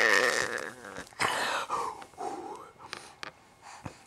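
Baby of about seven months making excited, breathy squeals and laugh-like vocal noises, loudest at the start, then a few shorter bursts that trail off.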